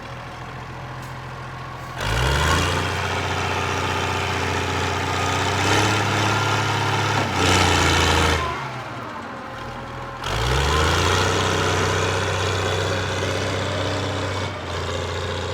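Loader engine idling, then speeding up about two seconds in and running hard under load for several seconds; it drops back near idle around eight seconds and revs up again about ten seconds in.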